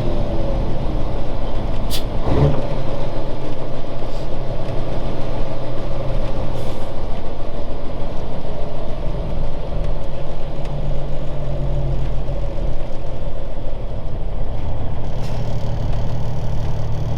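1999 Peterbilt 379's Cummins Signature Series inline-six diesel running steadily, with a sharp click about two seconds in. The engine has been spewing oil and is due for a rebuild.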